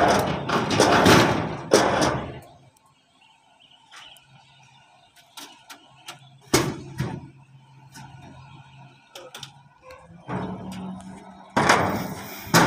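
Loud, sudden noisy bursts like heavy thuds or buffeting, one over the first couple of seconds, another about six and a half seconds in and more near the end. Between them a quieter stretch holds scattered light clicks and a steady low engine hum from a running machine.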